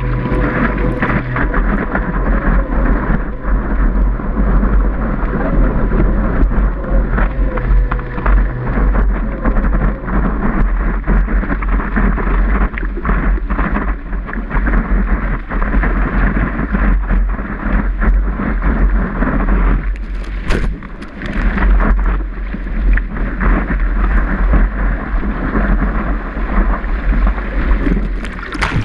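Water rushing and splashing against a surfboard as it is paddled into a wave and ridden, heard from a camera fixed to the board's nose, with a heavy low rumble under it. A burst of splashing comes near the end.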